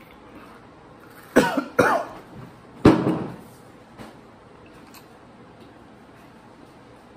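A person coughing hard three times, two coughs close together and a third about a second later, while eating spicy chips.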